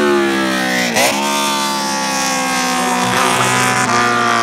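Classic racing motorcycles running at high revs, several engines heard together. About a second in, one pitch breaks sharply as a bike shifts gear, and the engine tones then slide slowly down.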